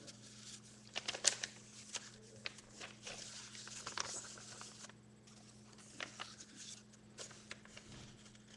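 A sheet of plain paper rustling and crinkling as it is handled and folded by hand, with scattered short crackles.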